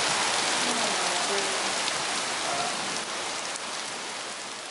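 Heavy cloudburst rain pouring down in a steady hiss, gradually growing quieter.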